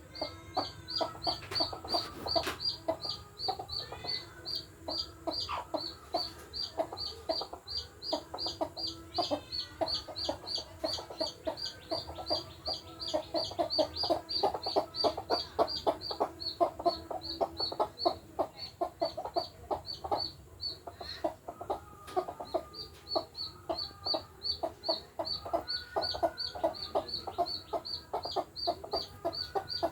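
Mother hens clucking over a chick that peeps steadily, about three short high peeps a second. The peeping pauses briefly about two-thirds of the way through.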